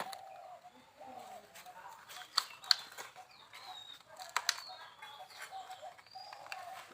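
Birds calling repeatedly, with a few sharp clicks.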